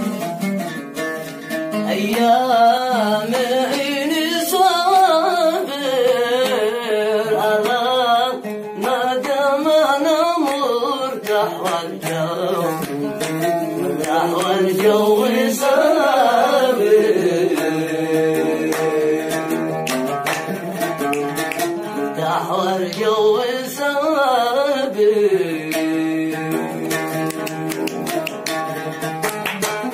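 A man sings a Yemeni song to his own oud accompaniment, drawing out long ornamented phrases over steadily plucked oud notes. The oud plays alone for a moment at the start, and again for the last few seconds after the voice stops.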